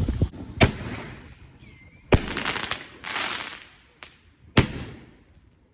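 Consumer fireworks going off: three loud bangs about two seconds apart, each followed by a crackling hiss that dies away, with a few smaller pops in between.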